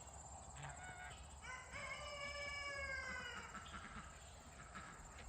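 Rooster crowing: a short call, then about a second and a half in a drawn-out crow lasting about two seconds that falls slightly in pitch.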